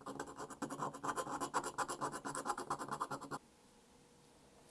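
Small hand file scraping the edge of a diecast zinc toy body in quick, even back-and-forth strokes. It is truing up the metal, and the strokes stop abruptly about three and a half seconds in.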